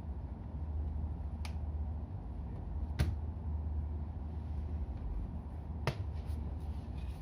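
A few sharp clicks of small hard objects being handled, three distinct ones a second or so apart and some fainter ticks near the end, over a steady low hum.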